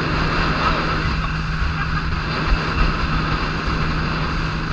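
Outboard motor of an inflatable boat running steadily at speed, mixed with the rush of water along the hull and wind buffeting the microphone.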